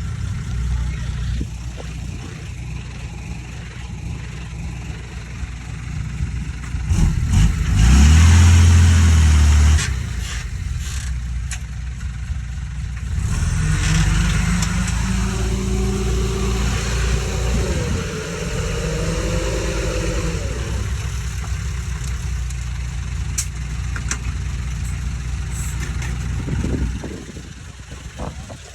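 Diesel engine of heavy earthmoving machinery running under load. It revs up to its loudest about eight to ten seconds in, then shifts in pitch, with scattered clanks throughout.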